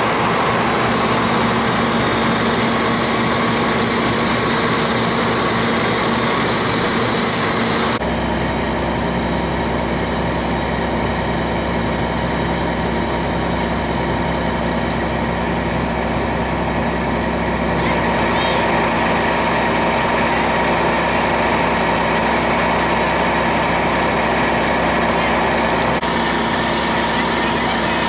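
A large engine running steadily at idle, a constant humming drone. Its sound changes abruptly three times: about a quarter of the way in, around the middle, and near the end.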